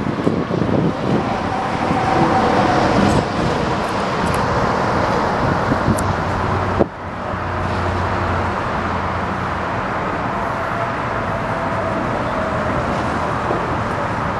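Steady low engine rumble mixed with outdoor noise. It dips suddenly about seven seconds in, then settles back to the same even level.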